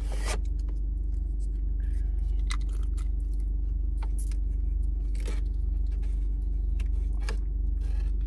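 Ketchup packets being squeezed out into a paper food tray: scattered short crinkles and clicks of packet and paper, over the steady low hum of a car idling.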